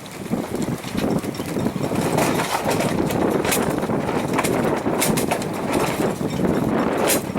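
Gusty wind buffeting the microphone and water rushing past the hull of a small sailboat under sail, with a few sharp knocks or clicks, one about halfway through and two near the end.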